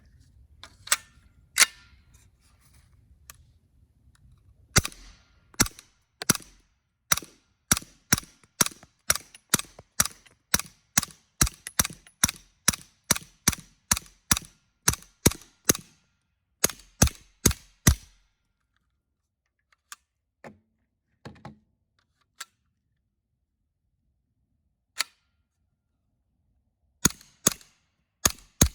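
Suppressed CZ Scorpion 9 mm carbine with an integral suppressor firing rapid shots, about two to three a second, in a long string. The string stops for several seconds, broken only by a few faint clicks and a couple of single shots, and the firing resumes near the end.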